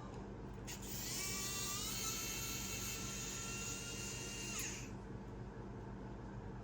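Small electric precision screwdriver whining as it spins, backing out a screw from the phone's motherboard. The whine rises in pitch as the motor spins up about a second in, holds steady for a few seconds, then winds down and stops near the end.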